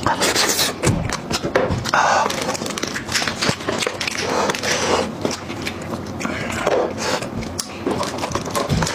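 Close-miked eating of a braised sheep's head: wet chewing and lip-smacking, with sticky tearing and clicking cracks as bare hands pull meat and bone of the skull apart.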